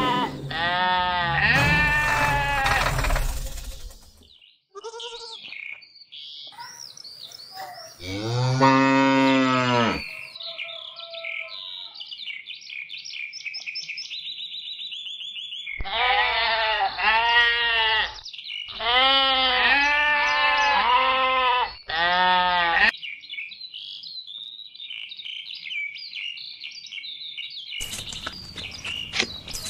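Farm-animal sound effects: sheep bleating several times at the start and again in a run of calls in the second half, with one lower, longer cow-like moo about eight seconds in. High bird chirping fills the gaps between the calls.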